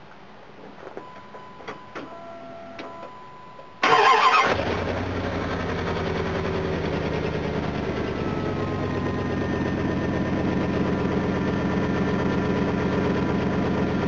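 Dodge Ram pickup's engine cranked by the starter about four seconds in, catching at once and settling into a steady idle, started on newly fitted battery terminals. Before it, faint clicks and a faint steady tone.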